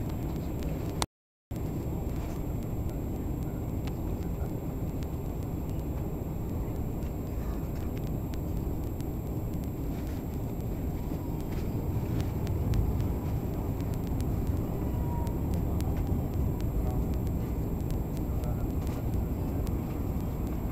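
Steady low rumble of an airliner cabin in flight, engine and airflow noise heard through the fuselage during the descent. The sound drops out completely for a moment about a second in.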